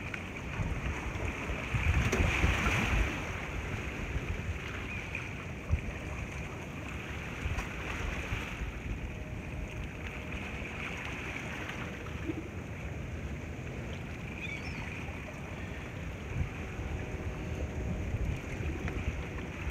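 Wind buffeting the microphone over waves washing against the rocks of a jetty, a steady rushing noise that surges louder about two seconds in.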